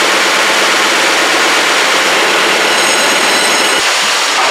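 Newspaper printing-plant machinery running: a loud, steady mechanical din from the conveyors and presses. The sound changes a little before the end, turning somewhat lighter.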